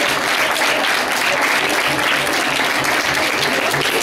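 A roomful of children applauding steadily, a dense, even patter of many hands clapping, greeting a motion that has just been carried in a vote.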